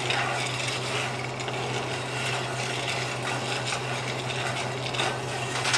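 Wooden spatula stirring roasting coffee beans around a cast-iron skillet: a steady scraping rattle of beans on iron with scattered small ticks. A fan hums steadily underneath.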